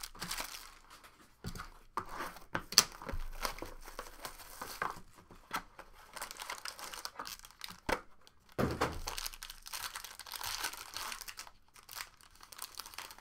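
Wrapping crinkling and tearing as a trading-card box is unwrapped and a foil card pack is ripped open, with a few sharp knocks from handling.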